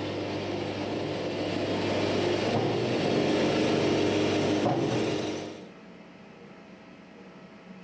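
Wood-Mizer LT-70 band sawmill running on its diesel engine, a steady machine sound that grows louder over a few seconds, then drops away abruptly about five and a half seconds in, leaving a much quieter background.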